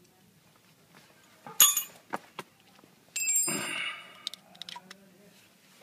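Metal clinking: a sharp ringing clink about one and a half seconds in, two light clicks, then a louder ringing, scraping metallic sound lasting about a second a little past the three-second mark.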